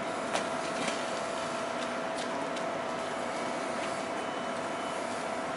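A steady mechanical hum with a constant high whine over a noisy background, and a few faint clicks and knocks.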